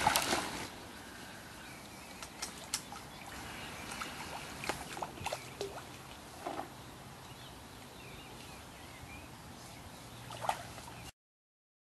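Hooked northern pike splashing at the water's surface, loudest briefly at the start, then quieter lapping water with scattered small splashes and clicks; the sound cuts off suddenly near the end.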